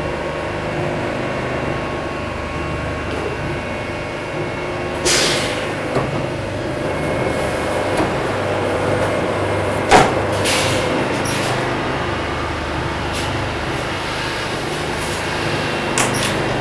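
Steady running noise of polishing and buffing machines in a knife-blade polishing department, with a short hiss about five seconds in and sharp clanks around ten seconds and again near the end.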